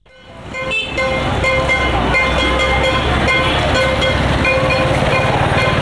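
Busy street traffic ambience: motor vehicles running, with frequent short horn toots over the din, fading in over the first second.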